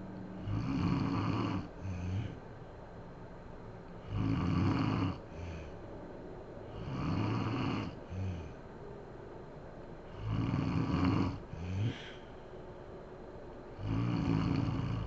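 A sleeping woman snoring: five loud, rasping snores come about every three seconds, each one followed by a shorter, softer breath sound.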